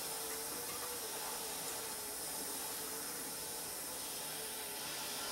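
Hand-held gas torch burning with a steady hiss, heating an AR-15's free-float tube to loosen the Loctite on its threads.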